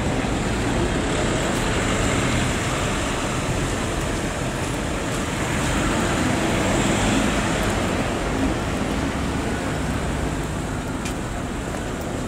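Steady road traffic noise, a dense rush of tyres and engines, swelling a little about halfway through.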